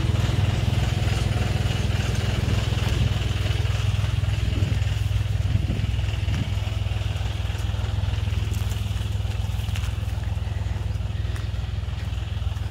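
Tractor diesel engine running steadily, driving a PTO-mounted HTP sprayer pump, with a low, even hum that slowly grows fainter.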